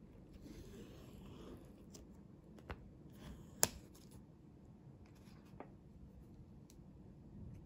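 Quiet rustle of a cup noodle's paper lid being peeled back off the cup, followed by a few sharp clicks, the loudest about three and a half seconds in.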